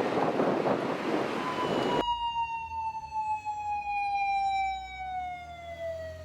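Japanese police motorcycle siren in one long wail that falls slowly in pitch. For the first two seconds wind buffets the microphone, then stops abruptly.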